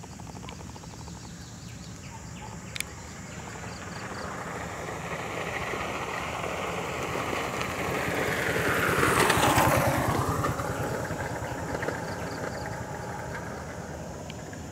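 A motorbike driving past: its engine grows louder over several seconds, is loudest about two-thirds of the way through, then fades as its pitch drops going by.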